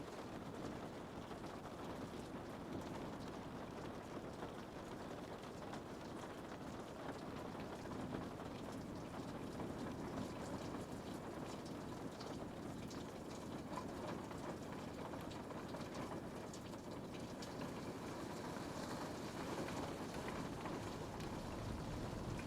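Steady rain falling, a continuous even hiss with faint scattered drop ticks.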